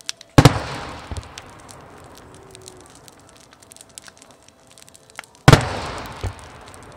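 Firework shells bursting in the sky: two loud booms about five seconds apart, each fading out over a second or more, with a fainter thump under a second after each one.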